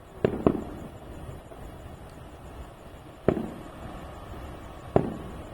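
Aerial firework shells bursting: four sharp booms, two in quick succession right at the start, one about three seconds in and another near the end, each trailing off in a rumbling echo.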